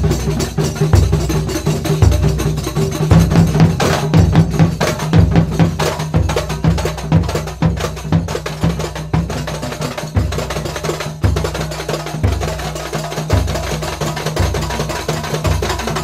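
Traditional procession drumming: large barrel drums beaten with long wooden sticks give deep booms about once a second, over fast woody clicking and a steady low tone.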